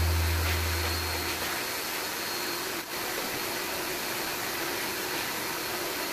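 Shop vacuum running, its suction making a steady rushing hiss as the hose nozzle is worked over the cabinet floor; a deep low hum fades out in the first second or so, and the hiss briefly drops near three seconds in.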